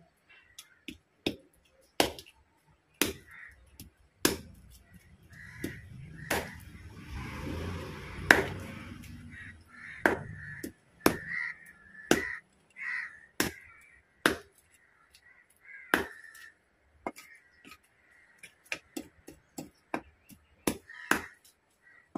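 Meat cleaver chopping through a large fish's back spines onto a block: repeated sharp chops at irregular intervals. Crows cawing again and again in the background.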